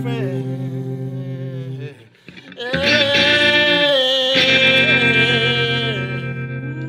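Electric guitar played through an amplifier: long sustained chords with a slightly pulsing low end and a wavering held high note over them. The sound drops away briefly about two seconds in, a new chord is struck about three seconds in and another a second and a half later, then it fades.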